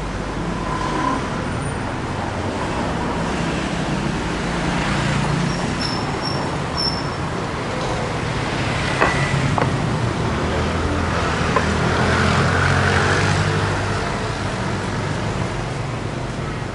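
City street traffic: cars, taxis and motorbikes driving past on the road, a steady mix of engine hum and tyre noise that grows louder for a few seconds past the middle.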